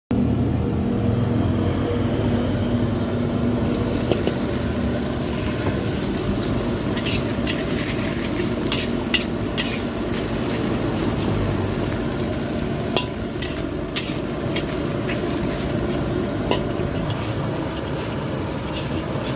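Food sizzling in a hot wok, with a metal spatula scraping and clinking against the pan now and then, most often between about seven and ten seconds in.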